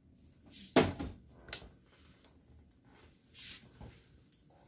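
Metal loaf pan set down on the stove with a loud clunk just under a second in and a lighter knock about half a second later. A short rustle and a small click follow near the end.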